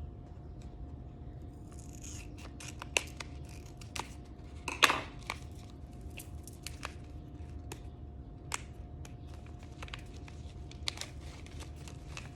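A packet of dried chamomile being opened and handled: scattered small clicks and rustles of the packaging, with one louder crackle about five seconds in.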